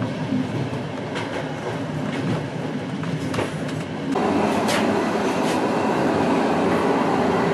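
Passenger train running at speed, heard from an open carriage window: a steady rolling rumble with a few clicks of the wheels over rail joints. About four seconds in it cuts abruptly to a louder, steadier sound with a held tone, from a close-by EU07 electric locomotive.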